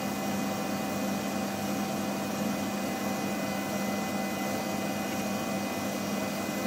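Steady electrical and mechanical hum of laboratory equipment, a few fixed tones over an even hiss, with no clicks or pops.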